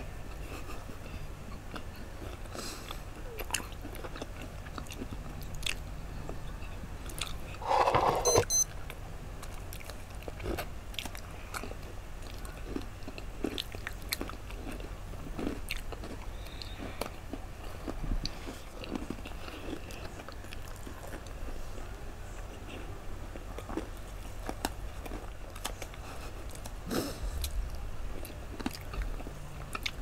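Close-miked crunching and chewing of Oreo chocolate sandwich cookies, with many small scattered bites and crackles, and one louder, brief sound about eight seconds in.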